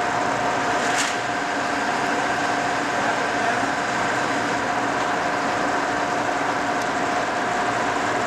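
Cincinnati No. 5 heavy-duty vertical milling machine running under power: a steady machine whine of several held tones over its running noise, with one sharp click about a second in.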